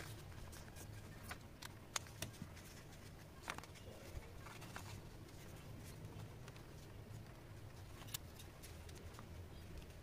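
Light clicks and taps of hands handling paper and craft tools on a desk, scattered irregularly over a low steady hum.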